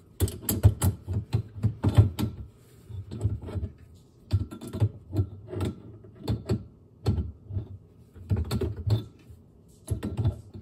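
A metal spanner working a water-line fitting under a sink, tightening the nut: irregular clusters of short clicks and knocks of tool on fitting and pipework.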